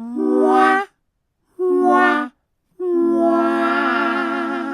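Choir-like sung sound effect: three held chords, the last one the longest and wavering slightly as it fades.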